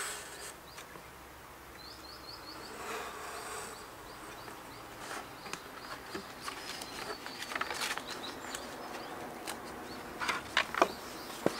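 Large sheets of handmade Japanese paper being handled on a wooden board: soft rustling, with a few sharp clicks and knocks near the end. Small birds chirp in short runs in the background.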